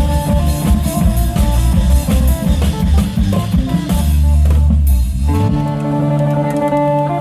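Isan long-drum (klong yao) band playing a fast, busy beat over a phin melody; about five seconds in, after a long low boom, the drums drop out and the phin (northeastern Thai lute) carries on alone with a plucked melody over a held bass note.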